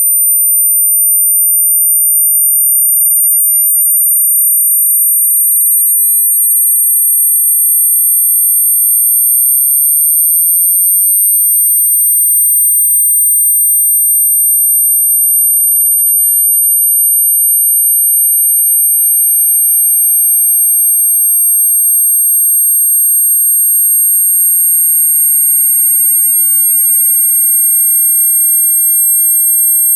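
Electronic sine test tones from a speaker-test frequency sweep: two very high, steady whistling tones sound together, one slowly sinking a little in pitch and the other slowly rising.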